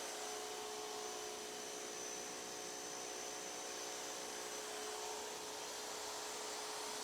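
Pressure washer running steadily with a constant hum, its 15-degree nozzle spraying a hissing jet of water onto the patio.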